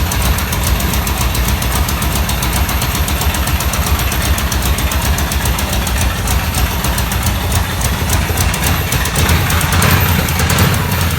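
Chevrolet Nova's engine idling steadily just after a cold start, on a freshly adjusted choke. It gets a little louder near the end.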